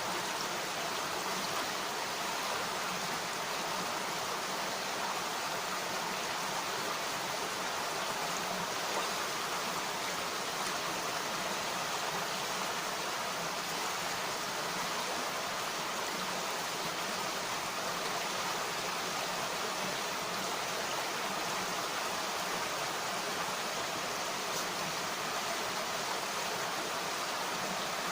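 Mountain stream running steadily: an even rush of flowing water.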